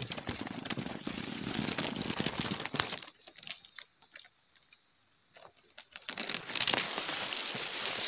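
Dry grass stalks rustling and crackling against the phone as it is pushed in among the grass, quieter for about three seconds in the middle, over a steady high chirring of insects.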